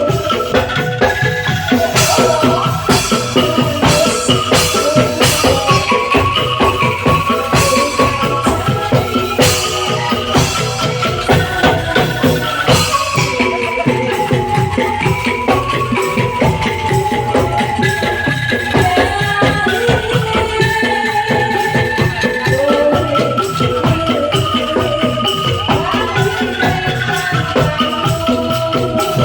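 Bamboo angklung ensemble playing a song: shaken bamboo tubes rattle in a fast tremolo on held melody notes, with sharp percussion hits through the first half.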